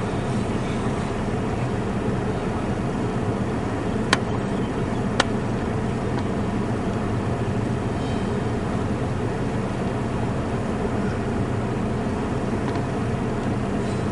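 Steady engine hum and road noise of a slowly moving car, heard from inside its cabin. Two short, sharp clicks about four and five seconds in.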